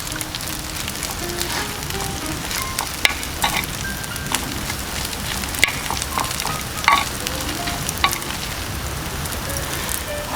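Beef pepper rice sizzling on a hot iron griddle, with irregular clicks and scrapes as it is stirred.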